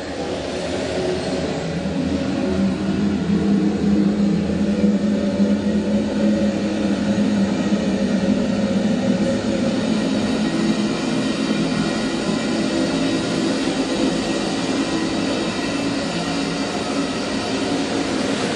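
A steady rumbling drone with a low hum running through it, fading in over the first couple of seconds and then holding.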